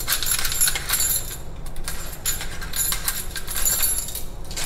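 Metal clinking and jingling as the brass mounting collar and washers are unscrewed by hand from a kitchen faucet's threaded shank: repeated light, high-pitched clinks.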